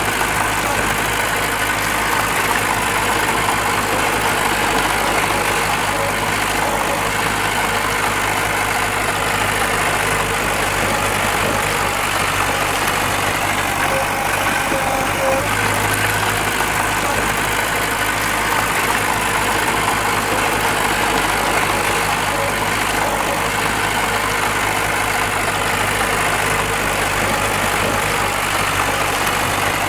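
Diesel engine of heavy earthmoving machinery running steadily at an unchanging speed.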